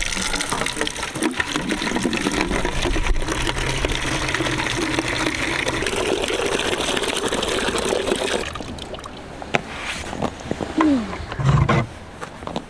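A stream of water pouring into a plastic bucket, a steady splashing rush that stops about eight and a half seconds in. A few light knocks and a short squeak follow.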